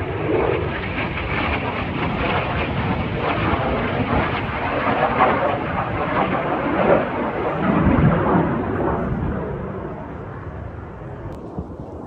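Jet noise from the Snowbirds' CT-114 Tutor aerobatic jets flying past, a loud rushing rumble that fades over the last few seconds.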